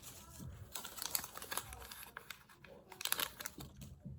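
Small plastic blind-bag packet being torn open and handled, giving irregular crinkling and crackling clicks, with a busier burst about a second in and another near three seconds.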